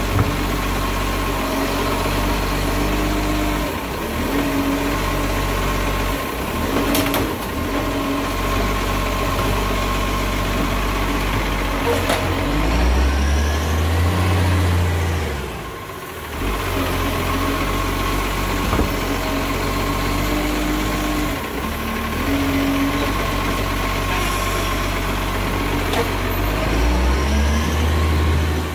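Diesel engine of an Iveco side-loader garbage truck idling with its distinctive chugging while the arm lifts and empties wheelie bins, a steady high whine running over it. The engine revs up twice, about halfway through and near the end, and there is a sharp clunk early on.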